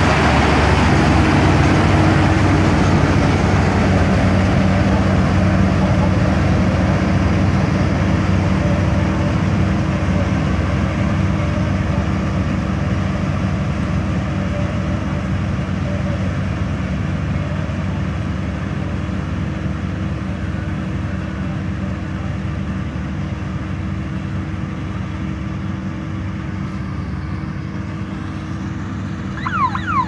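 A New Hind 999 combine harvester's diesel engine and threshing machinery running steadily, fading slowly as the machine moves away. In the last moment a rapid, warbling, siren-like tone starts.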